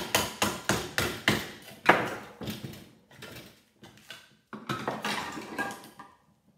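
Hammer striking a flathead screwdriver to drive it under a caulked box held in a bench vise: sharp metal blows about three a second, the loudest near two seconds in. After a pause of about a second and a half, lighter knocks follow.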